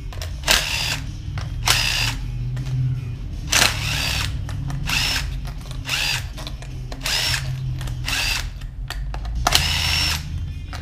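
A handheld power driver spinning out the 8 mm valve-body bolts of a GM 4L80E transmission, in about seven short bursts of whine spaced one to two seconds apart.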